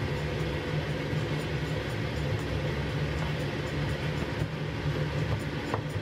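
Steady low rumbling mechanical noise with a hiss over it, like a kitchen extractor fan or cooking noise; a light knife tap on a wooden cutting board near the end.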